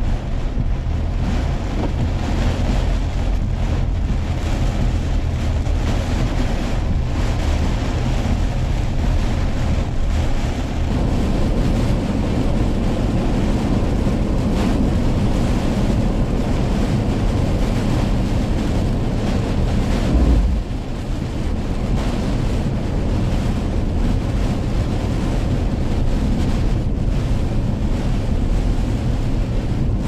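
Heavy typhoon rain and strong wind hitting a moving car, heard from inside the cabin over a steady low road rumble. A brief louder bump comes about twenty seconds in.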